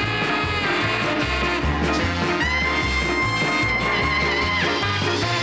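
Upbeat swing-style background music with brass and a steady walking bass; a horn holds one long note in the middle.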